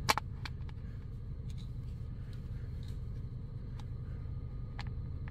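A sharp click at the very start, then a few faint clicks and handling sounds as the plastic parts of a handheld windshield cleaning tool are fitted together, over a steady low hum.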